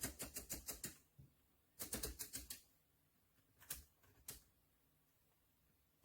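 Two quick runs of sharp clicks, about ten a second, the first starting at once and lasting about a second, the second about two seconds in. Two single clicks follow near the middle.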